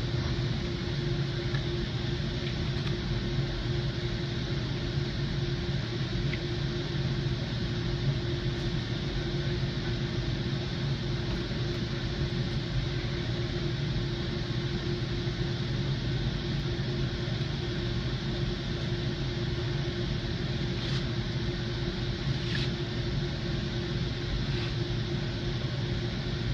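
Steady mechanical drone of a stationary commuter train: an even low hum with a constant tone over it, unchanging throughout, with no horn sounding.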